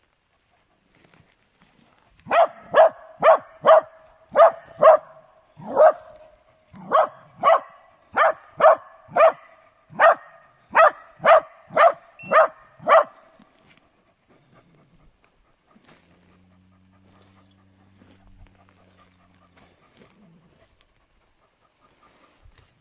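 A hunting dog barking about eighteen times in quick succession, roughly two barks a second, then stopping; on a badger hunt, a dog's barking like this is typically baying at the quarry.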